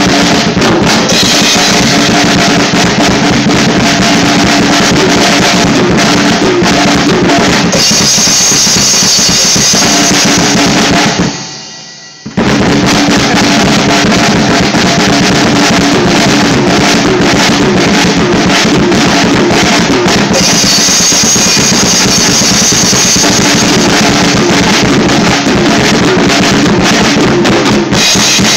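Drum kit played hard and continuously, with bass drum, snare and cymbals, so loud that the recording is overloaded. It stops for about a second near the middle, then starts again abruptly.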